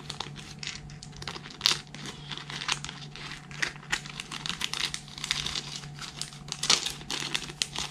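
Thin clear plastic bag of board game pieces crinkling and crackling in the hands as it is handled, in many irregular short crackles.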